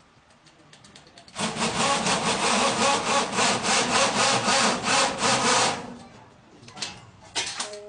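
DeWalt 48V brushless impact drill running under load for about four seconds, a fast rasping rattle that starts about a second and a half in and stops near the six-second mark.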